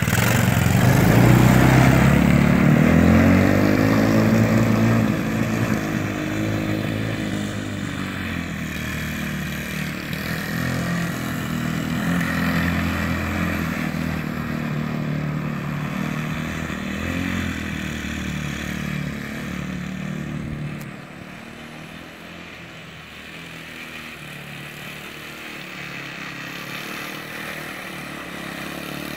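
Four-stroke 125cc engine of a mini Jeep revving up as it pulls away, then running steadily under way. It drops noticeably quieter about two-thirds through.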